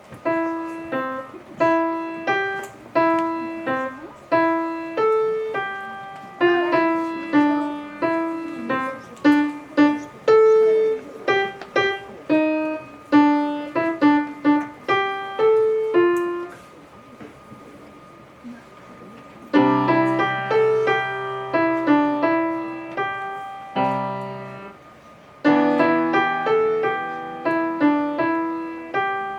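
Solo piano playing a simple piece: single repeated notes in the middle register, then, after a pause of about three seconds, fuller chords over low bass notes, with one short break near the end.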